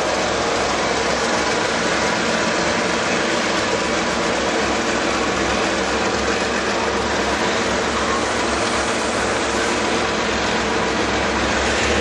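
Passenger coaches rolling slowly past on the rails, giving a steady, unbroken wheel-and-track noise.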